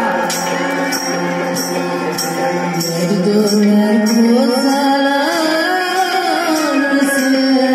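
Live folk music at a wedding gathering: a singer's voice in long, rising and falling phrases over steady held instrumental tones, with a light percussion beat about twice a second.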